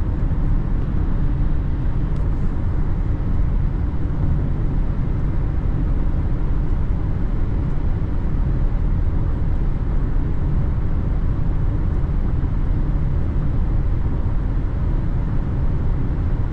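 Steady road and engine noise of a car being driven: a constant low rumble with no change.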